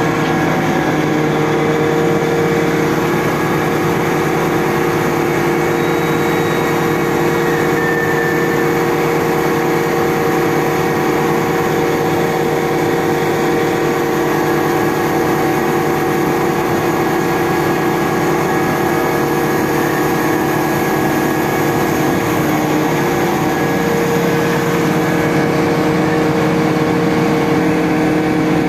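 Mobile crane's engine running steadily, with several steady whining tones over the engine noise. The pitch of the tones shifts slightly about three-quarters of the way through.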